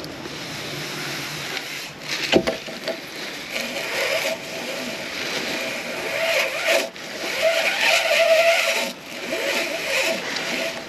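Fishing-magnet rope paying out over the well's rim as the magnet is lowered: a steady rasping scrape with a faint squeal coming and going, and one sharp knock about two and a half seconds in.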